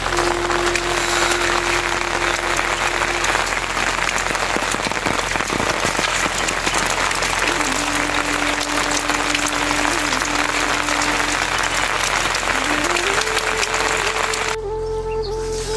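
Heavy rain falling steadily, with a slow flute melody of long held notes over it. The rain cuts off suddenly near the end, leaving only the flute.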